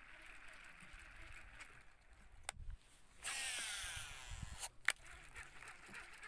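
A cast with a fishing reel: a click, then about a second and a half of line whirring off the spool, falling in pitch as it slows, ended by a sharp click.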